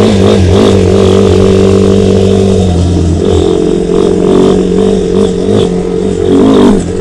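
A 300cc 4x4 ATV's engine running steadily as it is ridden at low speed, its note shifting about three seconds in and rising briefly in a short rev near the end.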